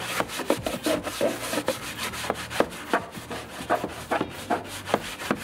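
Hand scrubbing of a wet, soapy plastic kayak deck, in quick back-and-forth rubbing strokes about two to three a second, washing off surface stains.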